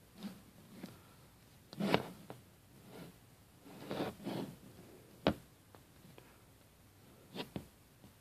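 Faint handling noise: fingers rubbing and shifting grip on a vinyl toy figure and the hand-held phone, a scatter of short rustles and scrapes with one sharp click about five seconds in.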